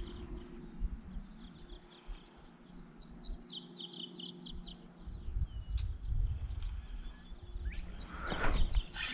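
Birds chirping over a steady high insect trill, with a quick run of about eight chirps near the middle. A low rumble comes in about halfway through, and a louder rush of sound near the end.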